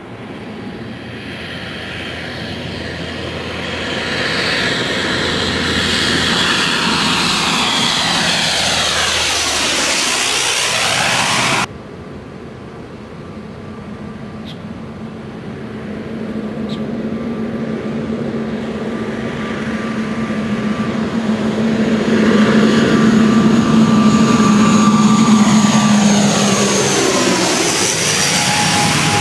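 Low-flying twin-engine turboprop airliner passing overhead: the engine and propeller drone swells with a sweeping, phasing sound and cuts off abruptly about twelve seconds in. A second pass builds from a steady low drone with a faint high whine, is loudest a few seconds before the end, and sweeps past as it goes over.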